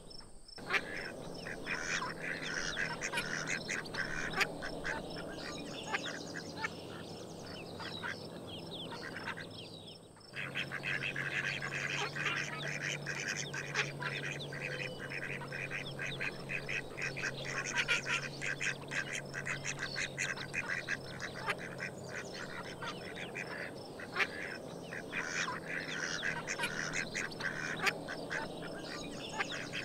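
A flock of domestic ducks quacking and chattering in rapid, overlapping calls, with a brief break about ten seconds in.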